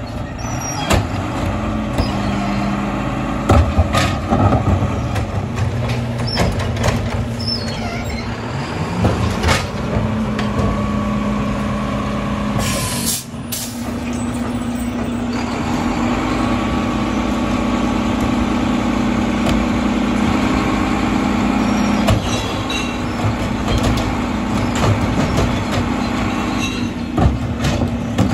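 Mack LEU side-loader garbage truck's engine running steadily and revving up for the packer, with knocks and clatter as plastic recycling carts are tipped into the hopper. A short hiss of air comes about halfway through.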